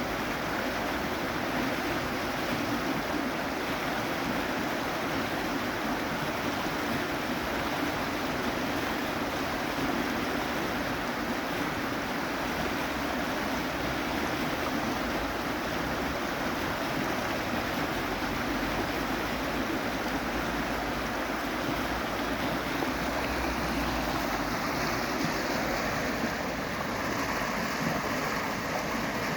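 Moving water, a steady even rushing with no breaks or surges.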